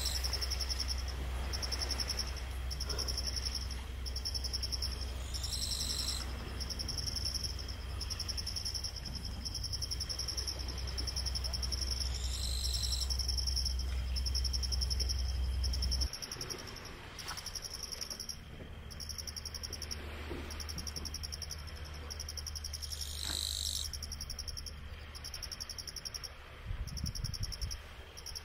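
Night insects, crickets, chirping in steady, evenly spaced high pulses, with a lower call breaking in every several seconds. A low hum sits underneath and drops away about halfway through.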